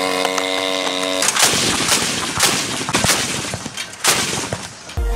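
Towed anti-aircraft gun firing: a run of sharp shots, about half a second apart at first, over a dense noisy rumble. A steady droning tone comes before the shots, in the first second.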